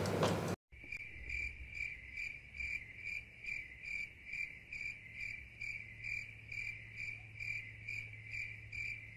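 Cricket chirping in an even rhythm, about two chirps a second, over a faint low hum. It begins right after a brief burst of close handling noise that cuts off abruptly.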